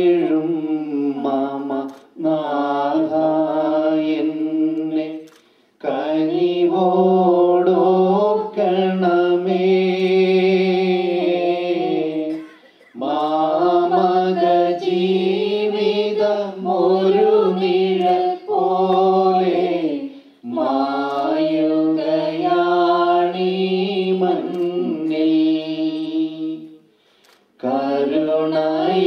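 Voices singing a slow church hymn in long, held phrases, with short breaks for breath between them.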